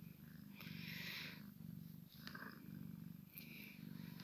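A cat purring, a low steady rumble that rises and falls with each breath.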